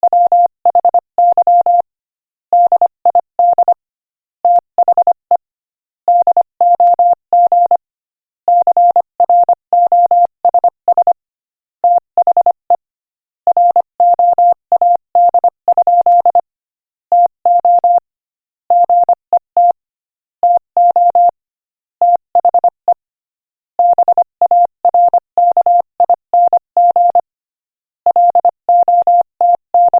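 Morse code sent at 25 words per minute as a single steady-pitched beep, keyed on and off in quick dots and dashes, grouped into words with short pauses between them.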